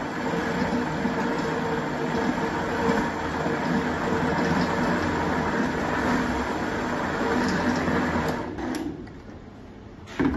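Countertop blender motor running steadily while oil is fed in through the lid, emulsifying a herb, egg and gin purée into a mayonnaise-like emulsion; the motor cuts off about eight and a half seconds in. Just after ten seconds, a sharp clunk as the blender lid is handled.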